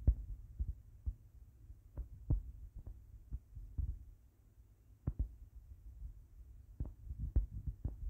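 Irregular soft taps and thumps over a low rumble: handling noise from fingers working the phone as the pages are scrolled, about a dozen knocks spread unevenly, the sharpest right at the start.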